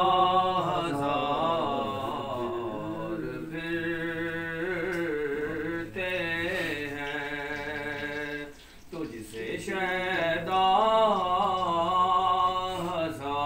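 A man's voice chanting a devotional recitation in a melodic style, holding long, wavering notes, with a brief pause about two-thirds of the way through.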